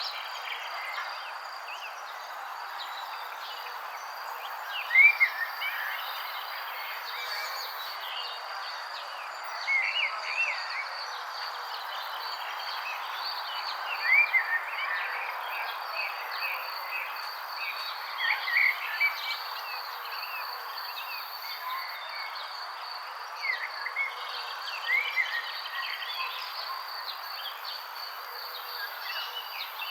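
Birds chirping in short clusters of calls every few seconds over a steady high insect trill and a constant background hiss.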